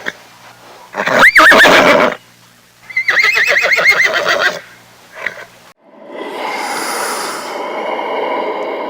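Horse whinnying twice, each a loud, wavering high call of about a second to a second and a half. About six seconds in, a long, steady breathy rushing sound begins.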